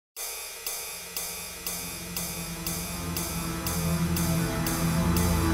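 Background music: a beat struck about twice a second over low sustained notes that swell in and grow steadily louder.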